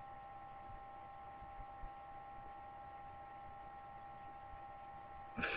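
Faint, steady electrical hum with several thin high tones running through it. Right at the end a synthesized voice starts to speak.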